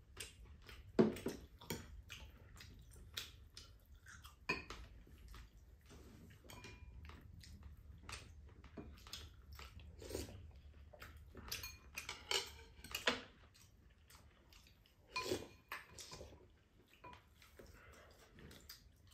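Metal spoon and chopsticks clinking and scraping against ceramic bowls and plates, with chewing, as scattered short clicks at a low level.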